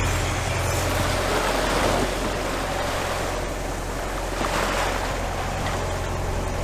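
A sailboat's inboard engine running with a steady low drone, mixed with the rush of water and wind as the boat motors along.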